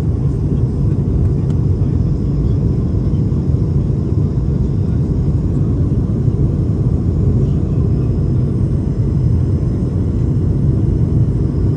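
Steady low rumble of cabin noise inside an Airbus A220-300 jet airliner, its geared turbofan engines running at an even, unchanging level.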